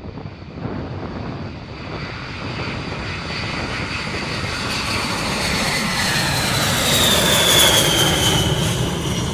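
B-52H Stratofortress taking off, its eight TF33 turbofan jet engines at takeoff power, growing steadily louder as the bomber lifts off and passes close overhead. Near the end a high engine whine slides down in pitch as it goes by.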